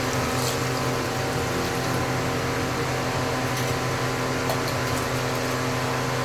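A steady mechanical hum with a faint hiss and a few soft clicks.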